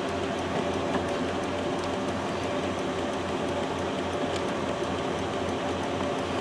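A steady machine hum with a low throb that pulses evenly several times a second.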